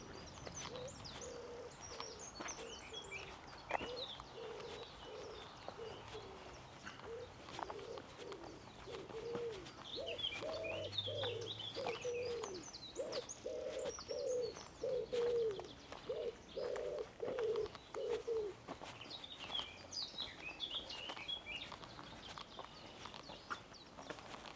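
A pigeon cooing in a long series of low repeated notes that stops about three quarters of the way through, with small songbirds chirping higher in brief bursts.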